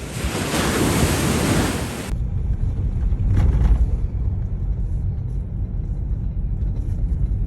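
A loud rushing hiss that cuts off abruptly about two seconds in, followed by a steady low rumble like a moving vehicle.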